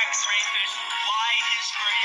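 Children's song music with a high, wavering, synthetic-sounding sung voice line.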